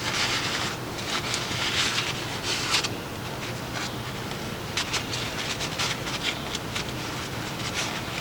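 Rubbing and scraping handling noises with scattered sharp clicks over a steady low hum; the scraping is strongest in the first three seconds.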